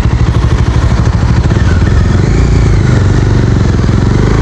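Motorcycle engine, heard from the rider's position, running at low revs with distinct firing pulses, then picking up revs and pulling away about halfway through.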